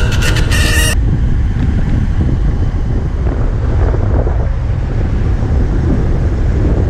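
Background music cuts off about a second in, leaving wind buffeting the microphone of a GoPro Hero 5 Session action camera on a moving road bike: a loud, steady low rumble.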